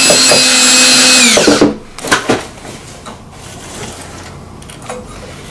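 Cordless drill/driver motor whining steadily as it drives a screw through a window-shade mounting bracket into the wooden window frame, stopping about a second and a half in. A few light clicks follow.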